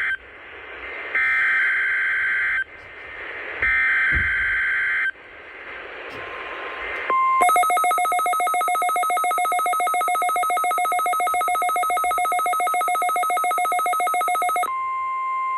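Emergency Alert System weekly test tones: two bursts of digital header data, each about a second and a half long, with hiss between them, then a pulsing two-tone attention signal for about seven seconds that ends in a steady single tone.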